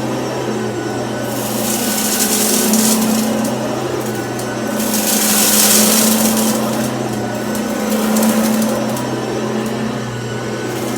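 Cordless stick vacuum running on carpet: a steady motor hum with a rushing hiss that swells louder several times, about two seconds in, around six seconds and again near eight seconds, as it is pushed back and forth.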